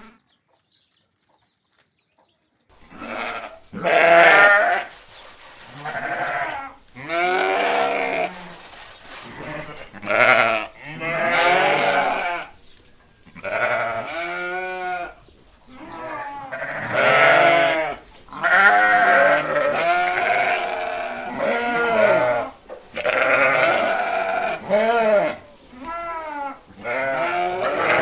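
Goats bleating: a long run of loud, wavering calls, one after another, starting after a couple of seconds of near silence.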